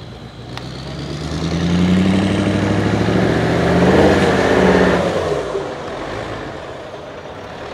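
Mercedes-Benz off-road trial truck's diesel engine revving hard under load as the truck climbs a steep dirt mound. Its note rises from about a second in, is loudest around four to five seconds, then drops off sharply as the driver lifts off.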